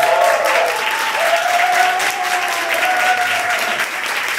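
Audience applauding, dense steady clapping with voices calling out over it.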